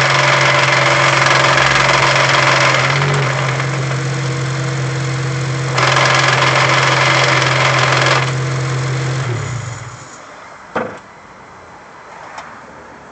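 2008 Honda Civic Si's K20Z3 engine idling while the transmission makes a loud, horrible noise twice, for a few seconds each time, dying back in between as the clutch is pushed in: a sign the owner takes for a bad input shaft bearing. The engine is switched off about ten seconds in, followed by a single knock.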